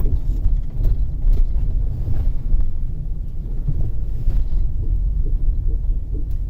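2005 Toyota Sienna minivan on the move: a steady low rumble with an uneven, pulsing grind from the front passenger wheel.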